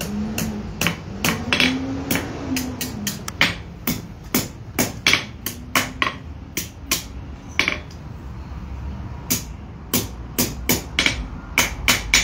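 Blacksmith's hand hammer striking a thin iron rod on an anvil in quick, uneven blows, about two to three a second, with a short pause a little past the middle. The blows are forming a 90-degree bend in the rod.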